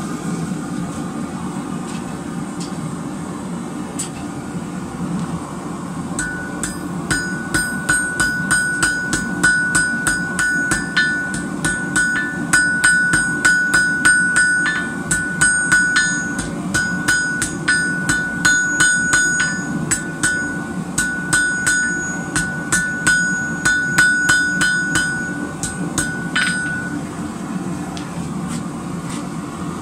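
A hand hammer strikes white-hot rebar on a steel anvil, about two to three blows a second, each with a high anvil ring. This is the forge-welding of two rebar pieces with flux. The blows start about six seconds in and stop a few seconds before the end, over the steady rushing of the gas forge burner.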